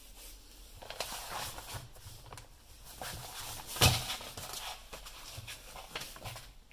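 A paper magazine is picked up and opened, its glossy pages rustling and crackling, with one louder crackle about four seconds in.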